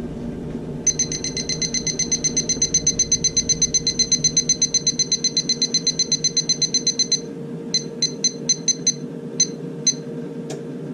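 Electronic kitchen timer being set for 60 minutes: a fast run of short, high beeps, about seven a second, as a button is held to count the time up, then about eight single beeps from separate button presses near the end. A steady hum runs underneath.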